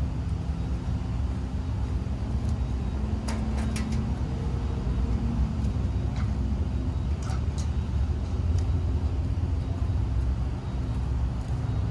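A vehicle engine running nearby, a steady low rumble with a faint hum, and a few short sharp clicks.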